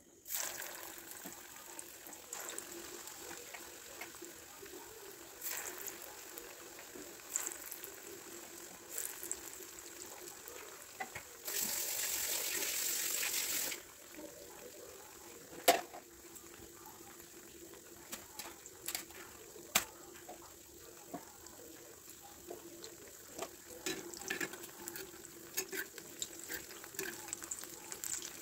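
Batter-coated mushroom chop deep-frying in hot oil in a kadai: a steady sizzle with small crackling pops. It grows louder for about two seconds near the middle, and a few sharp clicks stand out.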